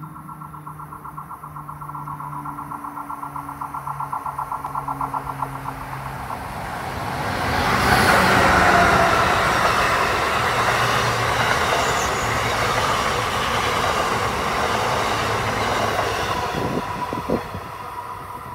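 An Amtrak train hauled by an ACS-64 electric locomotive approaches, first heard as a steady hum with a fast pulsing tone, then passes close by at speed as a loud rush of wheels on rail and air that peaks about 8 seconds in. It fades as the train recedes, with a couple of sharp clicks from the rails near the end.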